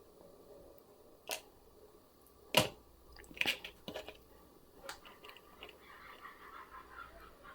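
Wire cutters snipping 0.8 mm paper-clip wire: one sharp snap about two and a half seconds in, with a few smaller clicks and light scraping from handling the wire and tools around it.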